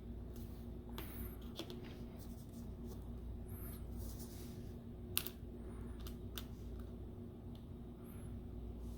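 Small clicks and scrapes of hands and tools working inside an opened tablet during a charging‑port repair, with one sharp click about five seconds in, over a steady low hum.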